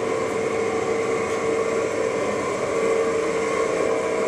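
DoAll V60 60-inch vertical band saw running steadily in low gear, its blade and wheels turning with an even hum and a clear steady tone.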